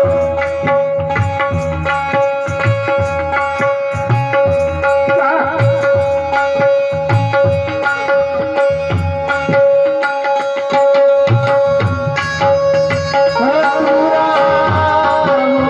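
Devotional kirtan accompaniment with no voice: a harmonium holds a steady drone and melody over a tabla playing a steady rhythm of low strokes, with light cymbal strokes keeping time.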